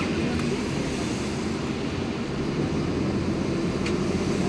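A moving bus heard from inside the cabin: a steady engine drone with road and tyre noise.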